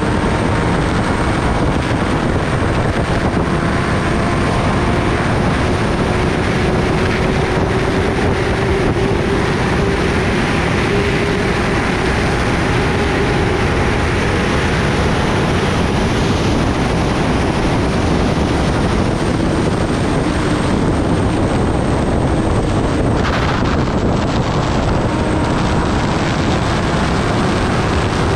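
Kawasaki Ninja ZX-10R's inline-four engine running at steady high speed under heavy wind rush. The engine pitch drifts slowly, and the sound dips for a moment toward the end.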